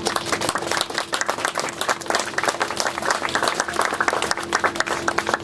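A crowd applauding, many hands clapping densely.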